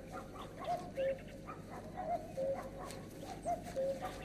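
Common cuckoo calling its two-note "cu-ckoo", a higher note falling to a lower one, about three times at a steady pace, with faint small-bird chirps behind.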